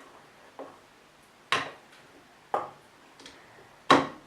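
A spoon knocking and clinking against a mixing bowl while slime mixture is stirred: about five irregular knocks, the loudest about a second and a half in and near the end.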